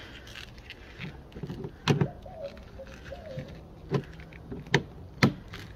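Hands working at the liftgate's gas strut and plastic pillar trim give four sharp clicks and knocks, spaced irregularly over a few seconds. A faint creak is heard between the first two.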